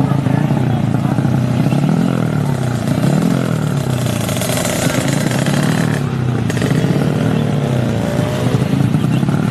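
Drag-racing motorcycle engine being revved while it is tuned, the throttle opened and closed over and over so the pitch rises and falls every second or so, with a longer rising rev near the end.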